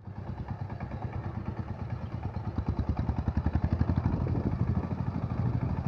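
Power tiller's single-cylinder diesel engine chugging under load as the two-wheel tractor ploughs through flooded paddy mud, with fast even exhaust beats, about ten a second. It grows louder over the first few seconds.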